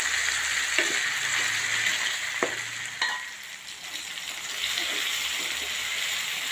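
Chopped onions and tomatoes sizzling in oil in a kadai as they cook down, stirred with a spatula that knocks against the pan three times in the first half. The sizzle drops for about a second past the middle, then comes back.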